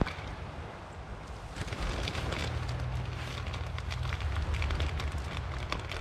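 Campfire crackling in scattered short snaps, over a low rumble of wind on the microphone that grows stronger about two seconds in.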